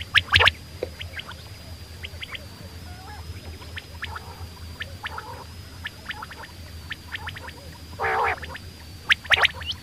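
Quail calling: scattered short, sharp chirps that sweep down in pitch, a brief warbling call about eight seconds in, and a quick run of chirps near the end.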